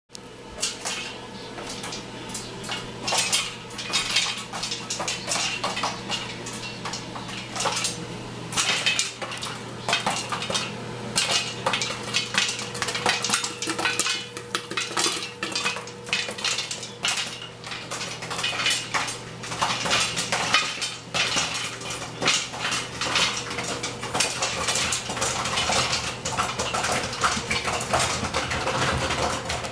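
Popcorn popping inside a covered metal pot on a stovetop: a dense, irregular patter of sharp pops and ticks against the lid and walls. A steady low hum runs underneath.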